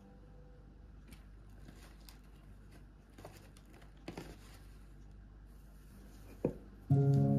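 Quiet handling sounds of hands working plants and a pot: faint rustling, crinkling and light taps, with a sharper knock about six and a half seconds in. Background music comes in near the end.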